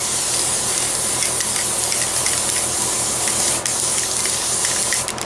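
Citadel aerosol spray primer can hissing in one continuous stream as primer is sprayed over a plastic model tank. It starts abruptly and runs about five seconds, with a momentary break about three and a half seconds in.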